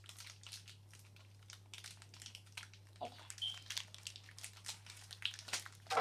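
Plastic blind-bag packets crinkling and rustling in the hands as they are snipped open with scissors, a string of short sharp rustles.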